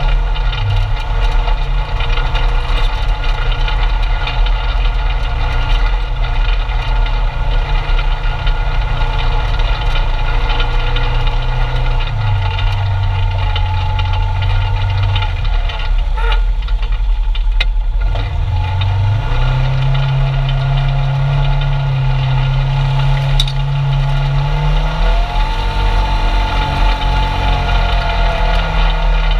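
Polaris RZR 900 side-by-side's engine running as it drives a dirt trail, heard from inside the cab. Its pitch shifts up and down several times with the throttle.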